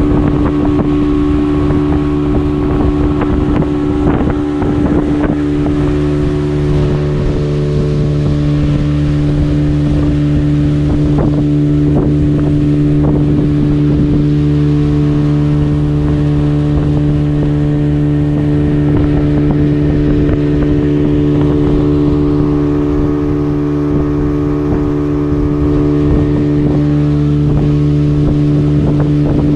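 Boat engine running at a steady speed while underway, with scattered knocks and thumps.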